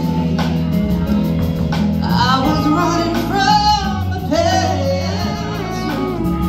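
Live band playing a song with electric guitars, bass, keyboard and drums. A woman's lead vocal comes in about two seconds in, with a wavering held note in the middle.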